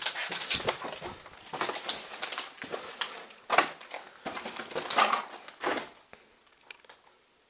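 Footsteps crunching and scuffing over rubble and broken plaster, irregular steps that die away about six seconds in.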